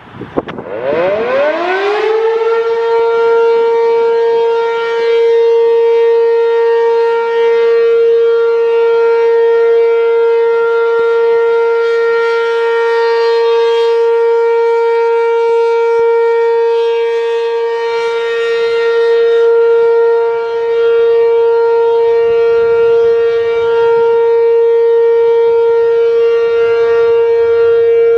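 ACA P-15 outdoor warning siren sounding the steady alert signal: it winds up in pitch over about the first two seconds, then holds one loud steady tone, its loudness swelling and easing slowly.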